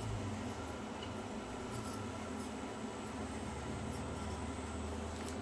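Micro-scale 1/24 RC crawler truck crawling over an obstacle course: a faint steady whir with a few light clicks and scrapes from its plastic tyres and drivetrain.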